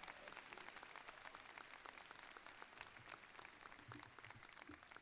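Audience applauding, heard faintly as many scattered claps that thin out toward the end.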